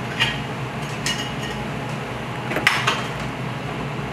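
Metal pots and pans clanking on a steel range, a handful of sharp knocks with brief metallic ringing, the loudest cluster coming about two and a half seconds in, over a steady ventilation hum.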